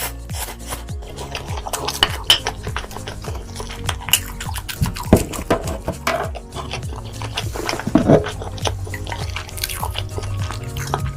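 Close-miked eating sounds: wet chewing, smacking and slurping clicks that come irregularly, over steady background music.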